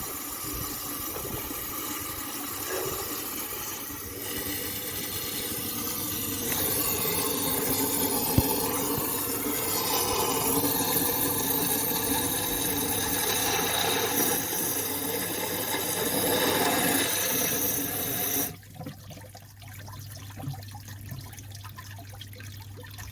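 Mains water from a garden hose rushing through the Sprinter van's engine cooling passages and gushing out during a coolant flush, with a steady whine running through the rush. It stops suddenly about 18 seconds in, leaving a low hum.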